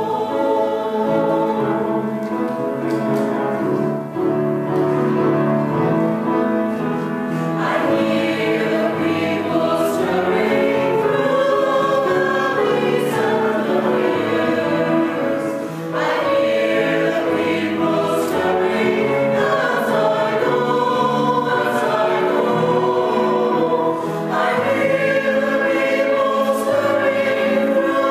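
Small mixed church choir, men's and women's voices together, singing a sacred choral piece steadily.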